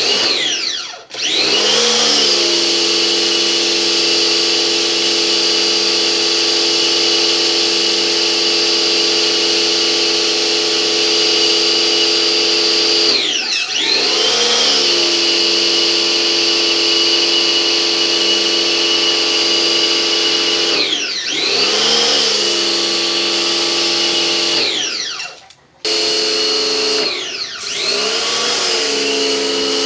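Pressure washer motor running with a steady whine. Its pitch sags and climbs back several times, and once near the end it cuts out briefly before spinning back up.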